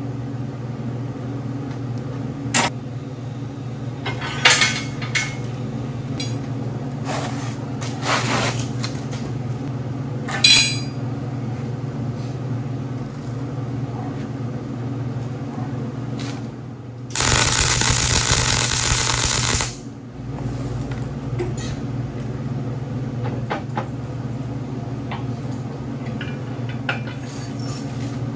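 Steel fabrication: loose chain and steel parts clank and rattle against the steel frame several times in the first ten seconds or so, over a steady machine hum. About two-thirds through, a loud, even welding-arc hiss runs for nearly three seconds, then cuts off.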